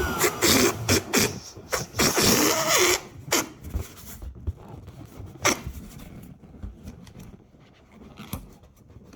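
Rubber balloon squeaking and being handled: short wavering squeaks with clicks and rubbing for about three seconds, then quieter scattered crinkles and taps.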